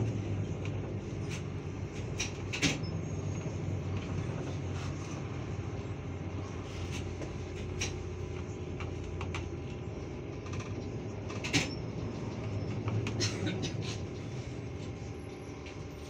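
Inside a moving trolleybus: a steady low hum and road noise as it runs, with the body and doors rattling. Sharp knocks stand out, loudest about three seconds in and again about twelve seconds in.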